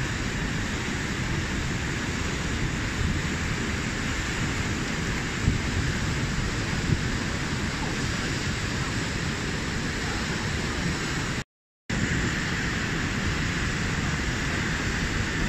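Whitewater of the Merced River rushing over granite boulders in a steady roar of noise. The sound cuts out briefly about three-quarters of the way through.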